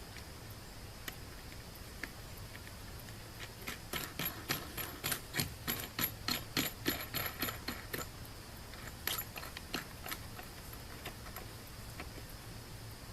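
A run of sharp metallic clicks, about five a second for roughly four seconds, then a few more clicks a little later.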